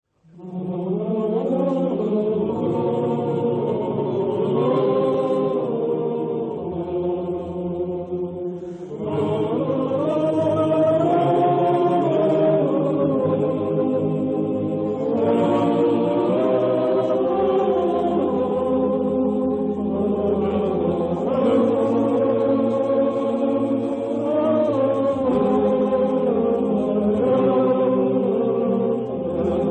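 A choir singing a slow chant in sustained chords. New phrases begin about 9, 15 and 25 seconds in.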